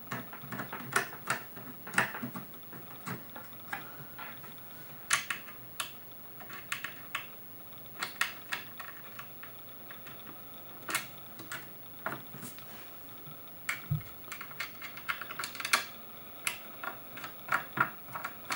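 Irregular light clicks and clatter of computer hardware being handled while an SSD is fitted into a server's drive cage, scattered sharp taps a second or so apart.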